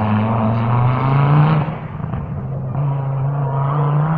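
Rally car engine accelerating hard after passing, its pitch rising, then falling back at a gear change about a second and a half in and holding steadier and quieter as the car moves away.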